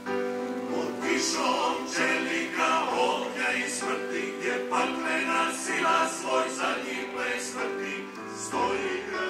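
Choral singing over held accompanying notes, the sung words changing note every second or so.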